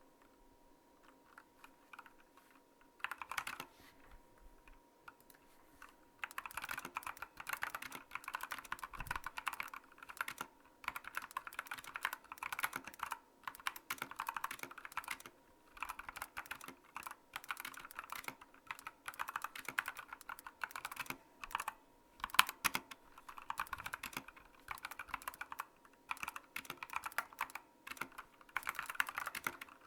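Typing on a mechanical keyboard with Outemu Brown tactile switches. A few scattered keystrokes come first, then from about six seconds in there is fast, steady typing in runs broken by short pauses.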